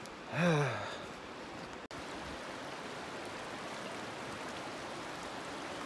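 Shallow rocky creek, the Blackburn Fork, flowing over stones with a steady rush of water. A short voice sound, falling in pitch, comes about half a second in.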